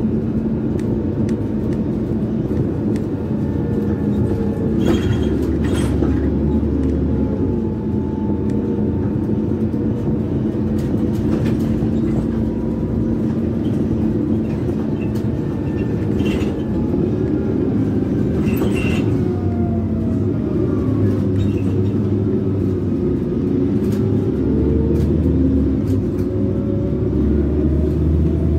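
Cabin noise of a Karsan Bredamenarinibus Avancity+ L CNG city bus under way: a steady engine and drivetrain rumble with a whine that glides up and down in pitch as the bus speeds up and slows, and occasional rattles and clicks from the body.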